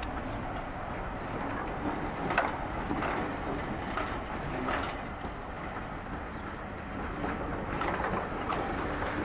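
British Rail Mark 1 passenger coaches rolling past close by: a steady rumble of wheels on the track, with irregular clicks and knocks from the wheels and bogies.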